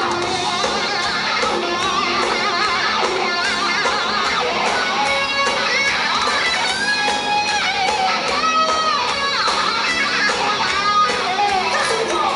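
Live hard rock band playing at full volume, with distorted electric guitars to the fore and sliding lead-guitar notes in the middle.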